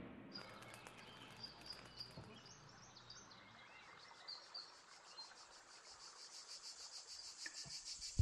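Faint outdoor summer ambience: birds chirping now and then, and an insect trilling in fast, even pulses that grow louder toward the end.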